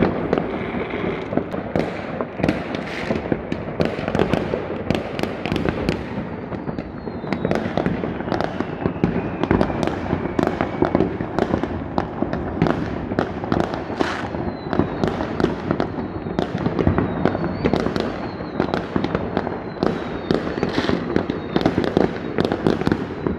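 Many New Year fireworks and firecrackers going off across the city in a dense, continuous run of bangs and crackles, with a few whistles falling in pitch.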